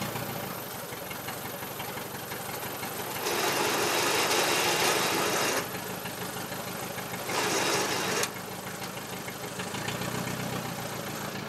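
Well-drilling rig machinery running steadily with an engine hum, joined by two loud spells of hissing: one about three seconds in lasting some two seconds, and a shorter one about seven seconds in.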